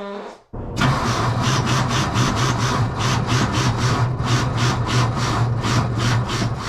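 Skid steer engine cranking over on its starter, a rhythmic chugging of about five beats a second with a brief break about half a second in. It is a hard cold start, the engine not yet firing.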